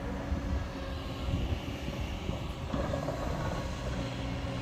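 Diesel engines of a Kobelco excavator and a small tractor running steadily, a low even drone with a constant hum.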